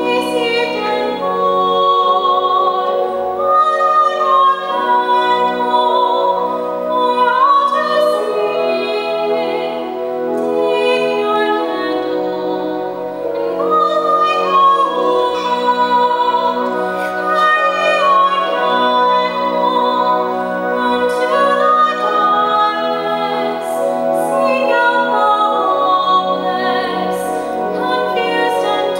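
A woman singing a slow gospel song with pipe organ accompaniment, the organ holding long sustained chords under her voice.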